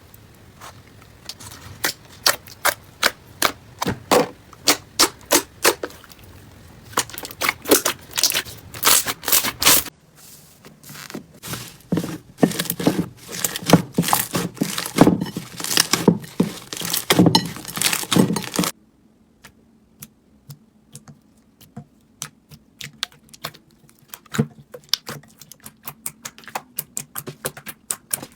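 Slime being pressed and worked, giving rapid crackling and popping clicks. The sound cuts abruptly to a different clip about ten seconds in and again near nineteen seconds, and the last stretch is much quieter with sparser clicks.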